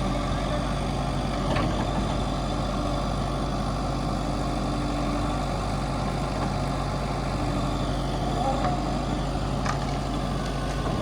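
Heavy machine's diesel engine running steadily at low revs, with a few faint clicks.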